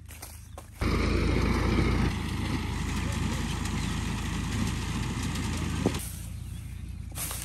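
Tractor engine running steadily while it works a rice field. The sound starts abruptly about a second in and drops away suddenly about six seconds in, with faint rustling footsteps through stubble before it.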